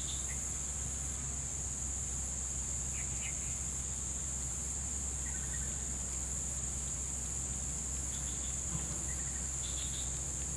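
Insects droning steadily in a high, even pitch, with a steady low hum underneath and a few faint short chirps.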